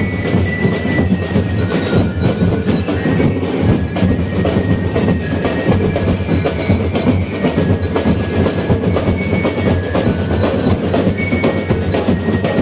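Loud percussion music: many drums beat a dense, continuous rhythm, with a few high ringing tones over it.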